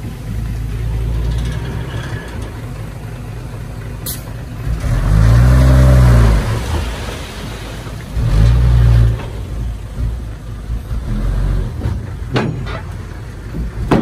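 Heavy diesel engines of earthmoving machinery running. One engine revs up and back down between about five and six seconds in and surges again briefly at about eight to nine seconds. There is a short sharp click about four seconds in.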